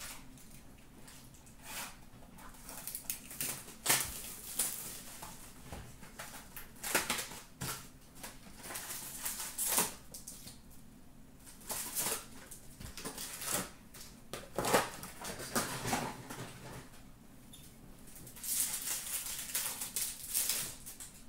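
Cardboard hobby box of Upper Deck SP Authentic hockey cards being torn open, its foil packs rustling and crinkling as they are handled. The sound is irregular scratching with sharp clicks, and the rustling grows denser near the end as a pack is opened and the cards handled.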